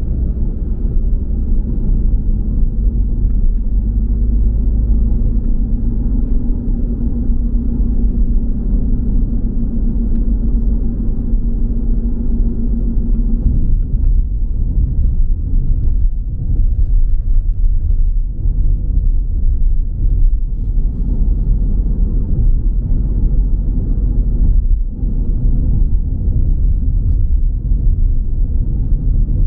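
Steady low rumble of a car driving on the road: tyre, road and engine noise, with a faint hum that fades out about thirteen seconds in.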